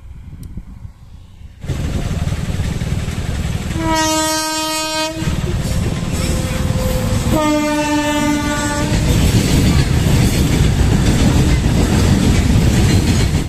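Indian Railways electric locomotive hauling freight wagons past at close range: a steady loud rumble of the train on the rails begins abruptly after a quiet opening. The locomotive horn sounds twice, each blast about a second long.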